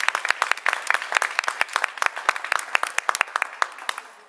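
An audience applauding, many hands clapping together, with the clapping dying away near the end.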